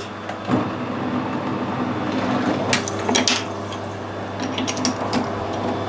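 Sharp metal clicks and clinks of a steel chuck key being handled and fitted into a lathe's three-jaw chuck, a few at a time with pauses between, over a steady low hum.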